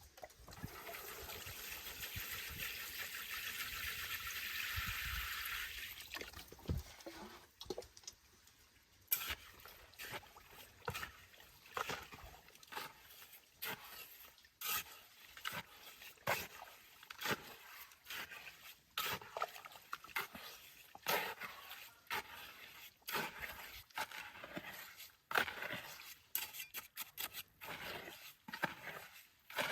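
Water pouring or trickling steadily for about six seconds, then a long run of irregular light knocks and clicks.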